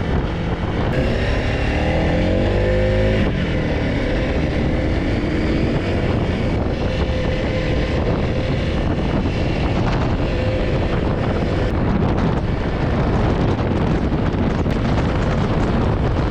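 Honda CRF300L Rally's single-cylinder engine pulling away, rising in pitch several times over the first three seconds as it goes up through the gears, then running steadily at cruising speed with wind rushing over the microphone.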